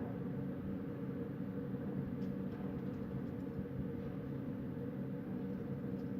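Wind blowing steadily as a constant low rumble, with no gusts or pauses.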